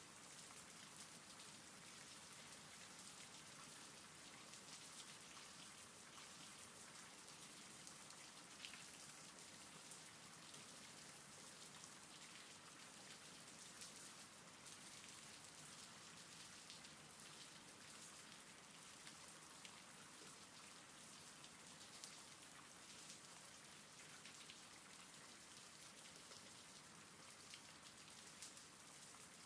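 Faint steady rain, with scattered individual drops ticking now and then.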